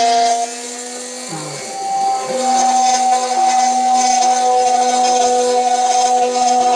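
A rotary tool running at high speed as the spindle of a homemade CNC router, its bit milling a pocket in a pine board, giving a steady high whine over a lower hum from the machine's axis motors. The sound drops in level about half a second in and comes back up about two seconds in.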